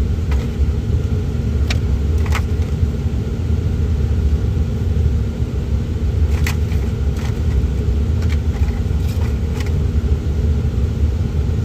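Steady low rumble of a moving car, with a faint steady hum and a few light clicks and rustles.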